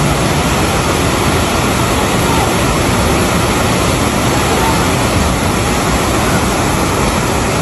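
Steady, loud rushing roar of a muddy river in full flood.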